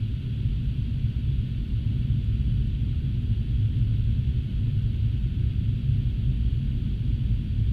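Steady low rumble of airflow and engine noise inside an Embraer regional jet's cockpit during the approach, with a faint hiss above it and no distinct events.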